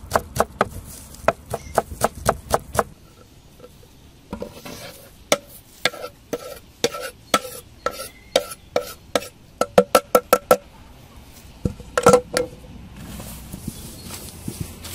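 A kitchen knife chopping fresh parsley on a wooden cutting board, quick steady knocks about three or four a second. Then the knife and board scrape and knock against a hammered metal bowl, each knock making the bowl ring briefly, with one louder ringing knock; near the end come soft squelching rubs of hands kneading the bulgur and spice paste.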